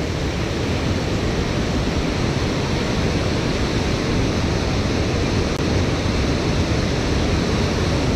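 Steady, even rush of water pouring out of a dam's spillway gates into the river below, with no change in level.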